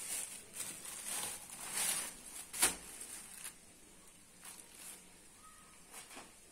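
Plastic bag rustling and crinkling as tandoor naan is lifted and put back on it, with one sharp click about two and a half seconds in; the handling turns quieter after that.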